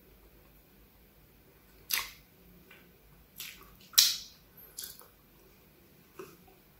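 Close-miked wet mouth clicks and smacks while chewing a bite of donut: four short, sharp clicks about two, three and a half, four and nearly five seconds in, the one at four seconds the loudest.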